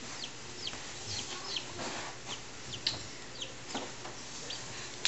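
Newly hatched chicks peeping: short high-pitched peeps that drop in pitch, two or three a second at an uneven pace. The chicks are calling to each other, which is said to encourage the ones still hatching to get out.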